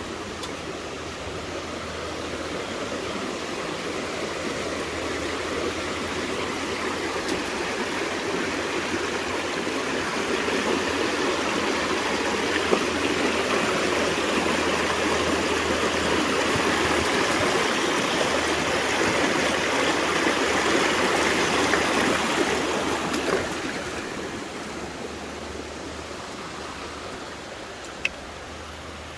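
River water rushing, a steady hiss that grows louder over the first ten seconds or so and drops away a little over twenty seconds in. A single sharp click near the end.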